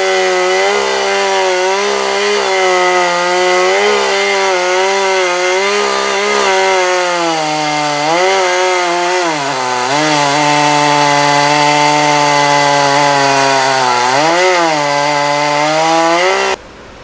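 Gas chainsaw running at full throttle, ripping lengthwise along a freshly cut, wet tamarack log. The engine pitch wavers and drops lower about eight seconds in as the saw bogs under a heavier cut, dips again near the end, then cuts off abruptly.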